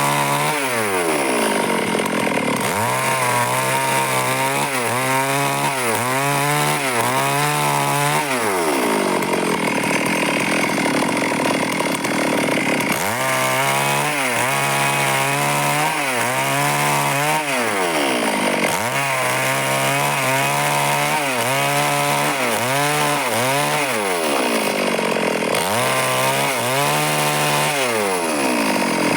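Stihl chainsaw cutting wood. Its engine speed swells and sags about once a second while it cuts, and drops back to a lower speed four times before revving up again.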